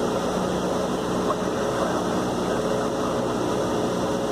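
Cessna 172's piston engine and propeller running steadily, heard from inside the cabin as a constant drone.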